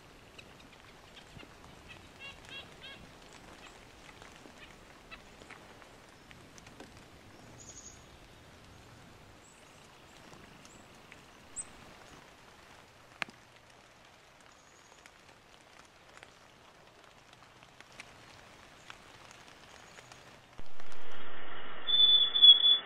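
Faint outdoor ambience with scattered high bird chirps and occasional soft ticks. About twenty seconds in, loud music with a sustained chord comes in.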